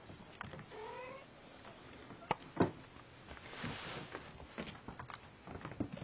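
Young kittens at play: one gives a short, rising mew about a second in, followed by thumps, scrabbling and rustling as they wrestle, with the loudest knock a little before the middle.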